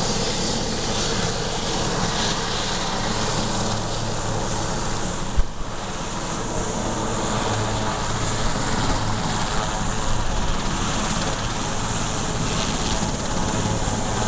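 Sikorsky S-61 Nuri helicopter running on the ground, its turbine engines and main and tail rotors making a steady, even noise with a thin high turbine whine. A short thump comes about five and a half seconds in.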